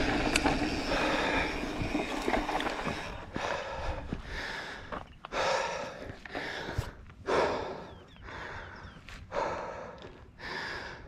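Mountain biker breathing hard, about one loud breath a second. At the start, the steady rush of wind and tyres on the dirt trail while still riding.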